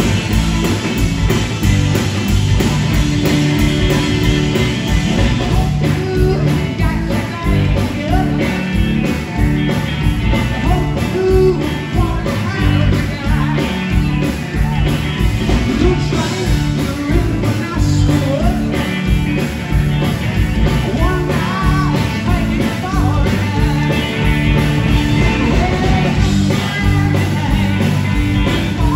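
Live rock band playing: electric guitar, electric bass and drum kit with a man singing lead, loud and steady.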